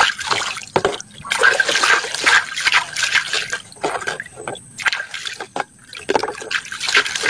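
Water splashing and trickling in uneven spurts as a muddy toy is washed.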